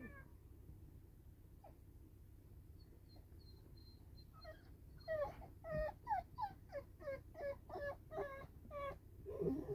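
A puppy whimpering: a faint thin high whine, then about five seconds in a run of short, falling whimpers, roughly two a second.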